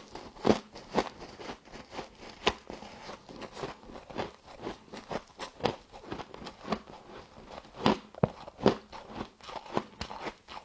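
Close-up crunching of humidifier frost being bitten and chewed: a run of sharp, irregular crackly crunches, several a second.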